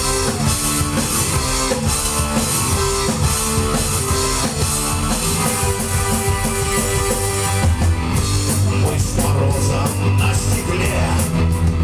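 Live rock band playing an instrumental intro on electric guitar, bass and drum kit. About eight seconds in, the drums pick up with sharper cymbal hits and the bass gets heavier.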